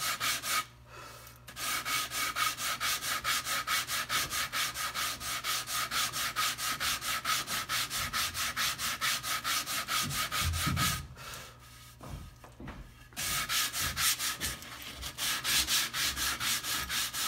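Sandpaper wrapped around a wooden block rubbed back and forth over a wooden half-hull model, in fast even strokes, about four a second. The strokes pause briefly about a second in and again for a couple of seconds about two-thirds of the way through. This is the first, coarse 80-grit pass that shapes the hull.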